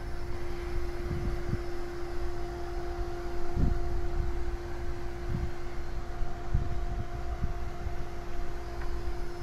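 Pump sprayer running while its wand sprays sealer over marble pavers: a steady hum over a low rumble, with a few soft thuds underneath.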